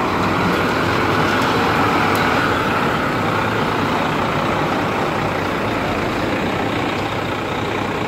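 Renault Kerax concrete mixer truck's diesel engine running close by, a steady noise that grows slightly fainter toward the end.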